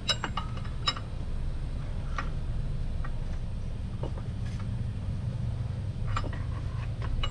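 A few scattered metallic clicks and clinks of hand tools and hardware being worked in place over a steady low hum. The clicks come at about a second in, around two seconds, four seconds and six seconds.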